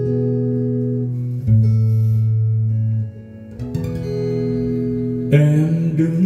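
Recorded music played back from a MiniDisc on a Sony MXD-D1 deck: the guitar introduction to a song, held plucked notes changing every second or two, with a fuller chord about five seconds in.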